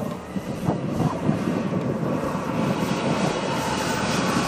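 Small gas turbine of a radio-controlled model jet running at power for its takeoff roll, a steady jet hiss that grows stronger near the end.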